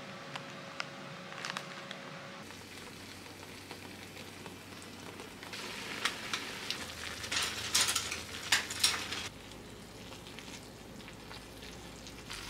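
Instant ramen noodles cooking in a glass saucepan over a gas burner, a steady bubbling hiss. From about six to nine seconds in come louder sharp crackles and rustles as the seasoning packet is shaken out over the pot.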